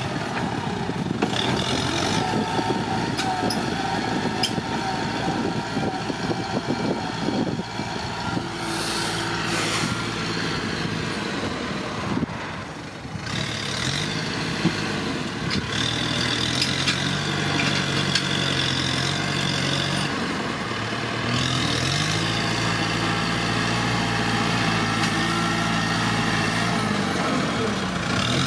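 Kubota tractor's diesel engine working while its front blade pushes and levels dirt. The engine speed drops and picks up again several times, with steady stretches between.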